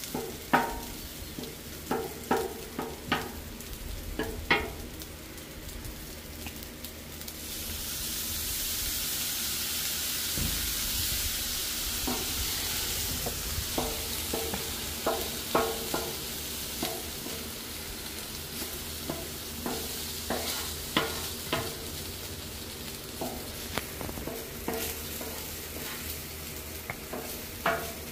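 Rice sizzling on the steel plate of a Blackstone flat-top griddle while a wooden spatula chops and scrapes it, the spatula's edge striking the griddle in runs of sharp taps. A louder hiss rises for several seconds in the middle.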